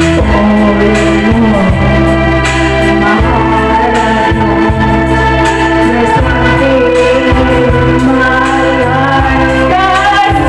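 A woman singing a song into a handheld microphone over a backing track of sustained organ-like keyboard chords.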